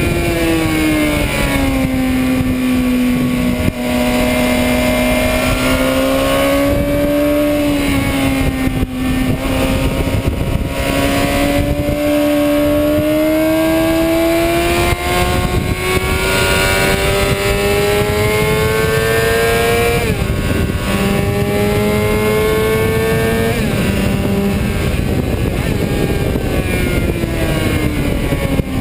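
2006 Suzuki GSX-R 750's inline-four engine running hard, heard from the bike itself. Its note sinks at first, holds, then climbs steadily under throttle, drops sharply twice about two-thirds of the way in as it is shifted up a gear, and falls away near the end as the throttle closes. Wind rushes over the microphone throughout.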